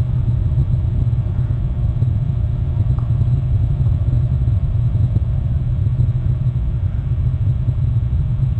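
Steady low rumble of wind buffeting the nest camera's microphone.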